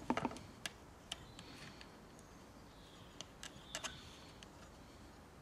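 Faint, scattered small clicks and taps of a chainsaw's fuel filter and fuel hose being handled as the filter is worked off the hose, the loudest cluster right at the start.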